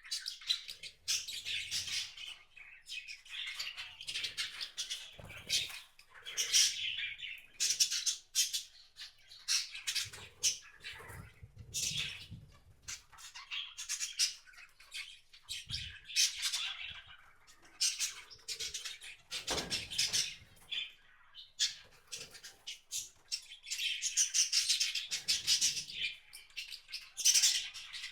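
Wild songbirds at a feeder, many short chirps and calls overlapping continuously, with a few soft low thumps scattered among them.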